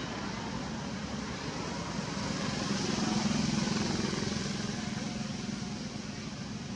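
A passing motor vehicle: engine noise that swells to a peak about halfway through and then fades, over steady outdoor background noise.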